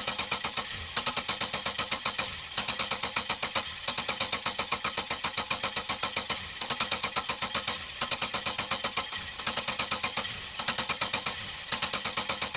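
A car engine being cranked by its starter without catching. It runs in repeated short bursts of about eight even pulses a second, with brief breaks between bursts.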